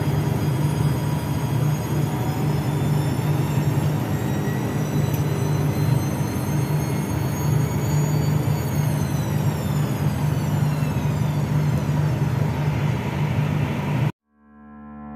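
Steady mechanical hum with a high whine that slowly rises and then falls away. It cuts off suddenly near the end, and music begins to fade in.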